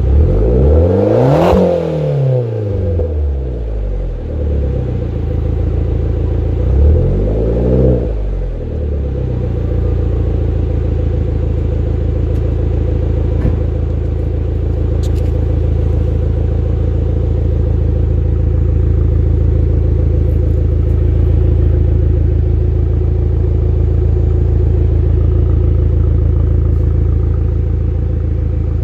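Exhaust of a Fiat Bravo's 1.4 T-Jet turbocharged four-cylinder petrol engine: revved sharply once right at the start and again about seven seconds in, then settling to a steady idle for the rest.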